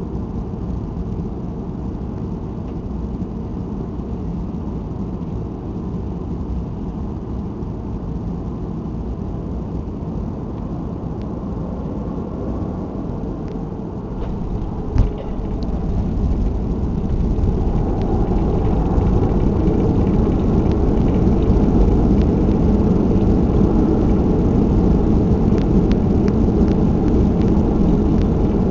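Cabin noise of a Boeing 737-300 with its CFM56 engines, a steady low rumble on final approach. About halfway through, a single sharp thump as the wheels touch down, then the rumble grows louder and stays loud as the engines go into reverse thrust and the aircraft decelerates on the runway.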